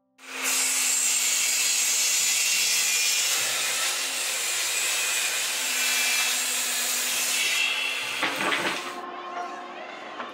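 Table saw ripping a plywood strip: a loud, steady cutting noise that starts suddenly and holds for about eight seconds as the board is pushed through the blade. Near the end it drops to a quieter, wavering run once the cut is done.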